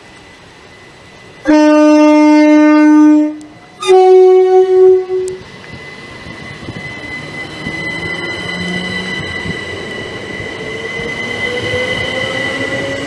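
Southern Class 377 Electrostar electric multiple unit sounding its two-tone horn: a lower note held for about two seconds, then a shorter higher note. The train then runs past with a rumble and a whine that rises in pitch.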